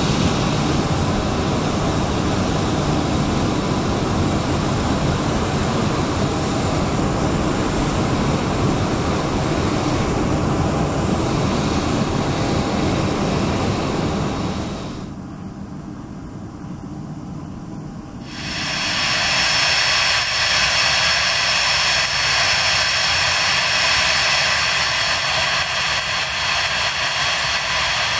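Twin Pratt & Whitney Canada PW545C turbofans of a Cessna Citation XLS+ business jet running at taxi power: a steady jet rush with a high-pitched whine. The sound falls away sharply for about three seconds past the middle, then comes back with a stronger high whine.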